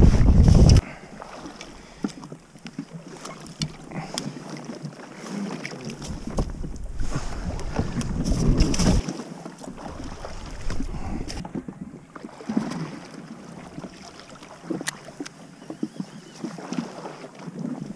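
Wind buffeting the microphone in gusts, heaviest at the start until about a second in and again from about six to nine seconds in, over a steady hiss. Scattered small clicks and knocks of fishing tackle being handled.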